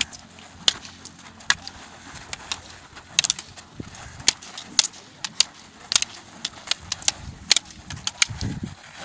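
Long silambam staffs clacking against each other in sparring: sharp wooden clacks at an irregular pace, sometimes several within a second.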